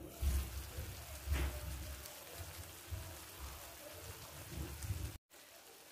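A covered frying pan of stuffed eggplant rolls in tomato sauce sizzling and bubbling, a fine crackling patter with irregular low rumbles underneath. It cuts out briefly about five seconds in and goes on as a quieter, steadier hiss.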